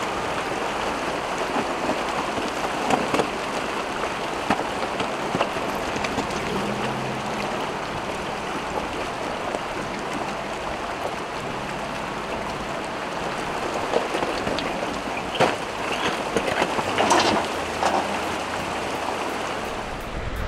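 River water rushing and splashing around a vehicle's tyres as it fords a rocky river crossing, with the engine faint underneath and a few sharp knocks and splashes in the last few seconds.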